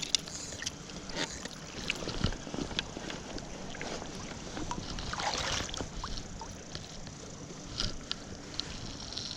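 Water sloshing and splashing around a wader in a river, with scattered small clicks and one longer swish about five seconds in, over the steady wash of the current.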